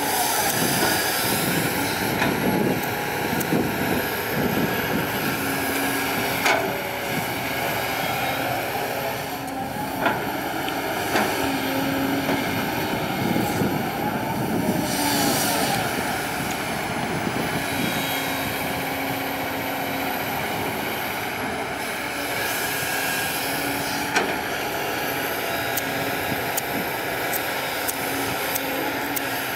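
Kobelco SK200 hydraulic excavator's diesel engine running under load as it digs and swings, with a high whine that rises and falls as the hydraulics work. A few sharp knocks come through, at about a quarter, a third and four-fifths of the way through.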